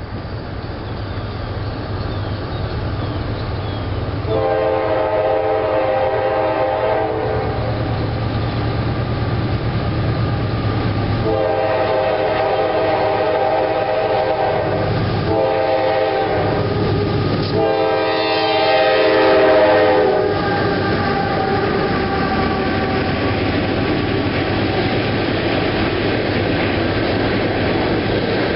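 CSX freight train's diesel locomotive sounding its chord horn for a grade crossing in the long, long, short, long pattern, the last blast loudest. Its engine rumble runs underneath, and from about two-thirds of the way in the freight cars roll past with a steady rumble and wheel clatter.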